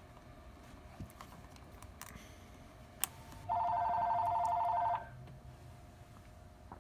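A telephone ringing: one loud burst of a fast-trilling electronic ring lasting about a second and a half, a little past the middle, just after a sharp click.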